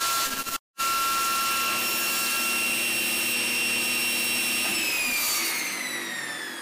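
Table saw running at a steady whine after cutting into the sled's sacrificial fence, then switched off about four and a half seconds in, its pitch falling as the blade spins down. A brief dropout in the sound comes under a second in.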